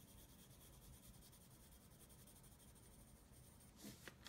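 Very faint scratching of a coloured pencil on paper, near silence, then a couple of soft clicks and rustles near the end.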